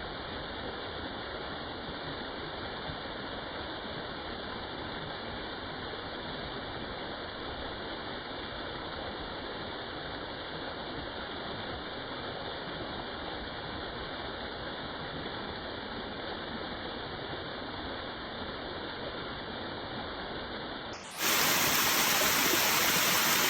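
Waterfall's steady rush of falling water. Near the end it jumps abruptly louder and brighter.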